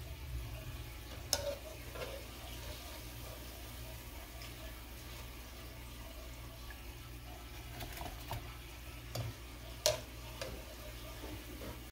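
Oil sizzling as sesame-coated pumpkin balls deep-fry, with a wire-mesh skimmer stirring and scooping through the oil. The metal clinks sharply twice, about a second in and near the end.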